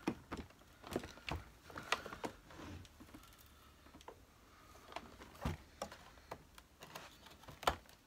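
A screwdriver working at a seized screw in the base of an upright vacuum cleaner: irregular clicks and knocks of tool and casing, with sharper knocks about two seconds in, midway, and near the end.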